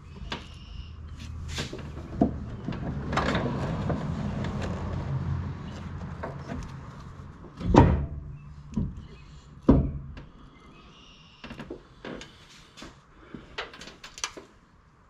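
Aluminium cylinder head being worked down onto a billet 2JZ engine block: a stretch of rubbing and scuffing metal, then a few sharp knocks, the loudest about eight seconds in, followed by lighter taps as it seats.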